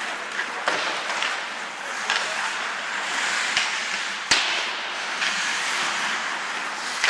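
Ice hockey play: a steady hiss of skates on the ice and rink noise, with several sharp clacks of sticks and puck, the loudest about four seconds in.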